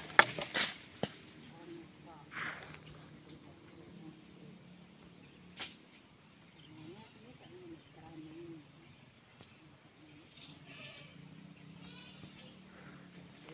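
Steady, high-pitched chorus of insects. A few sharp knocks sound in the first second or so, and a single one near the middle.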